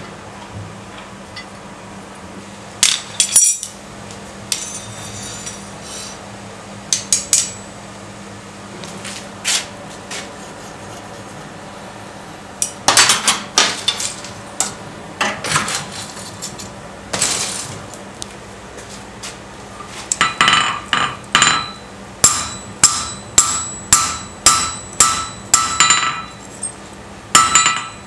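Scattered metal clanks and knocks, then, about two-thirds of the way in, a steady run of hammer blows on hot steel on an anvil, just under two a second, each leaving a ringing tone: the hammering of a bevel into a herb-chopper blade laid over a flat bar.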